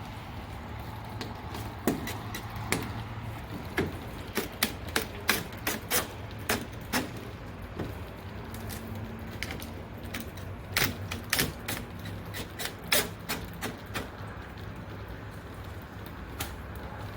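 Irregular light clicks and taps of hand work on small parts and fasteners, in two busy clusters, over a steady low hum.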